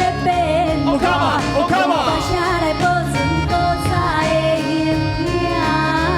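Music from a song blending Taiwanese opera and recitative singing: a melody with sliding pitch glides over a steady low accompaniment.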